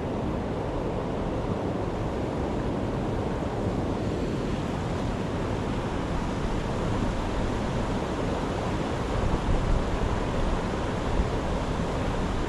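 Steady rushing of a small creek's waterfalls and rapids, an even noise that does not let up.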